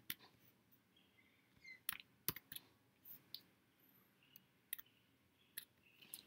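Faint, irregular clicks of computer keyboard keys being typed, a few at a time with short gaps.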